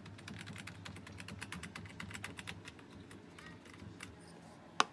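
Laptop keyboard keys tapped in a fast, irregular run of light clicks that thins out after about three seconds, with one sharper, louder click near the end.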